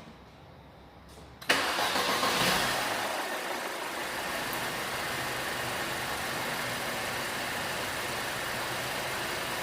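Mercedes C180 engine starting about a second and a half in, catching at once, then running at a slightly higher level briefly before settling into a steady idle. It runs smoothly, without the start-up noise that came from the worn pulley now replaced.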